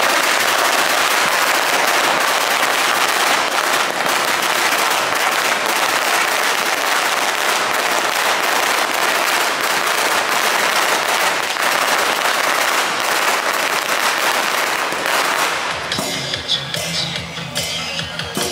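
A long string of firecrackers crackling continuously, a dense run of rapid bangs that dies out about sixteen seconds in. It leaves music with steady pitched tones.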